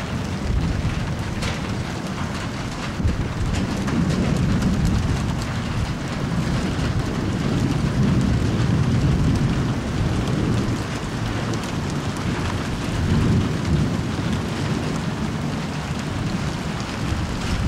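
Steady heavy rain with low rumbles of thunder that swell and fade several times.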